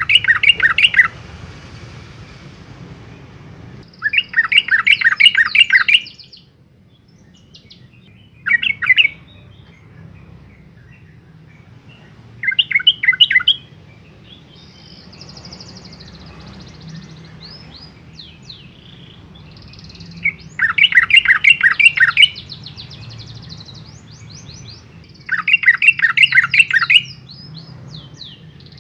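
Yellow-vented bulbul singing: six loud, bubbly phrases of rapid repeated notes, each lasting one to two seconds, with fainter, higher twittering between them.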